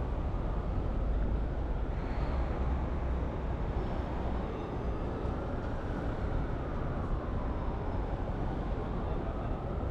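Steady city street traffic noise: a low rumble of passing vehicles, with a faint engine note that rises and falls about halfway through.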